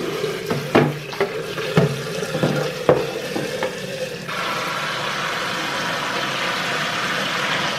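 Several sharp knocks and clatters, then about four seconds in a steady hissing rush starts suddenly and holds.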